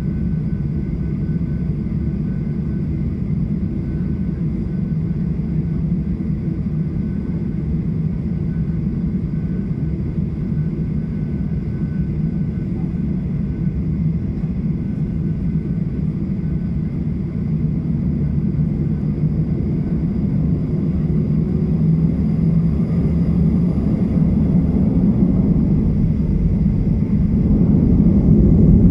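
Cabin noise inside a taxiing Boeing 737-700: a steady low rumble from its CFM56-7B engines at taxi power, with a faint steady whine above it. It grows gradually louder over the last ten seconds or so.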